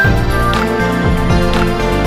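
Background music with a steady beat and held instrumental notes.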